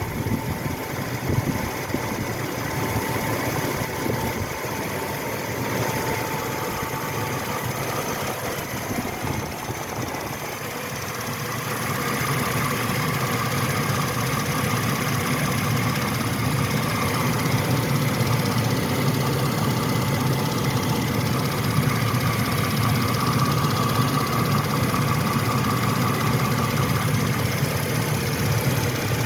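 1998 Chevy C1500's 5.0L V8 idling with a ticking from the engine bay, which the owner thinks comes from the rotor area. It gets louder about twelve seconds in.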